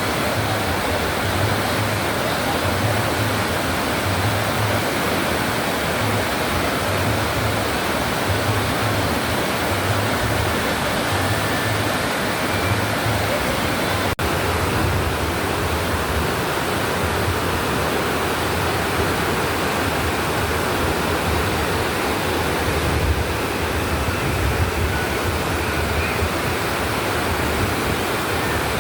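Waterfall rushing in a steady, loud roar of falling water, with a split-second break about halfway through.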